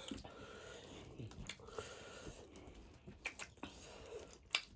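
Faint wet chewing and mouth smacking from eating pork feet, with a few sharp clicks near the end.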